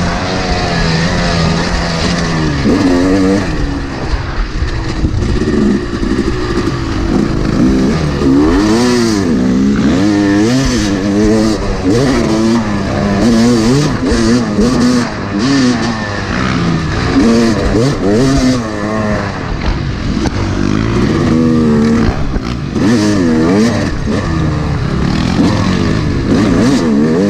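Yamaha YZ250 two-stroke dirt-bike engine, revving up and down again and again as the rider works the throttle and gears along the trail.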